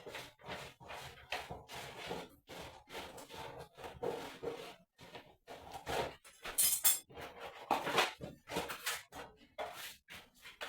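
A run of irregular knocks and clinks from objects being handled, coming in short separate bursts with brief gaps between them.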